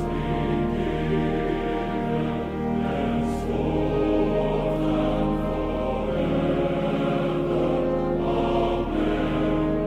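Choral music: a choir sings slow, long-held chords.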